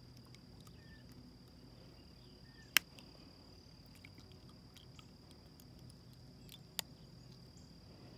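An insect trilling steadily on one continuous high note, with two sharp clicks about four seconds apart, the first the louder.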